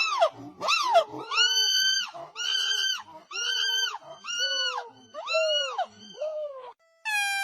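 Monkey giving a rapid series of about ten high, shrill calls, each rising and then falling in pitch. Near the end a different, long call held at one pitch starts.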